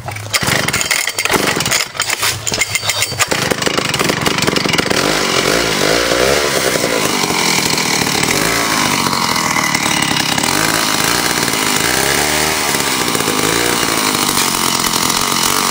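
Vintage McCulloch two-stroke chainsaw engine coughing and catching unevenly for about three seconds, then running steadily and loudly after being pull-started with difficulty on a freshly cleaned carburettor.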